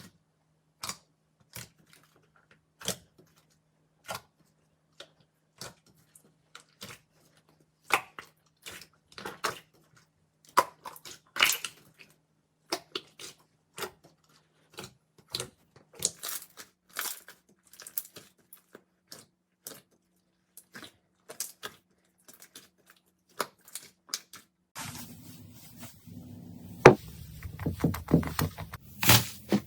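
Slime being handled and squished, giving irregular sticky pops and clicks, a few a second. About 25 seconds in, a steady hiss comes in under them and the pops get louder.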